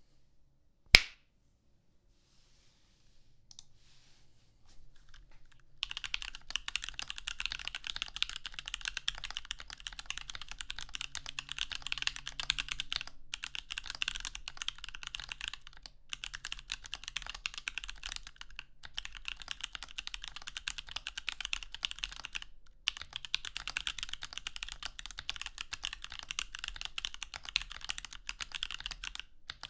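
Continuous typing on a Switch Couture Alice mechanical keyboard with Koala switches, a fast patter of key clacks starting about six seconds in, with a few short pauses. A single sharp, loud click comes about a second in, before the typing starts.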